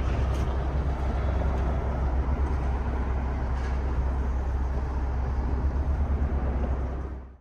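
Single John Deere diesel of a trawler yacht running steadily underway at slow speed, a deep drone heard inside the pilothouse with a haze of water and wind noise over it. It fades away right at the end.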